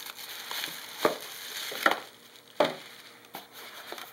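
Plastic packaging crinkling and rustling as parts are handled out of a box, with several sharp clicks and knocks.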